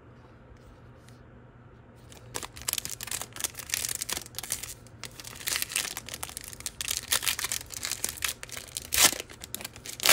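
Plastic trading-card pack wrapper being torn open and crinkled by hand, starting about two seconds in, with a sharp loud crackle near the end.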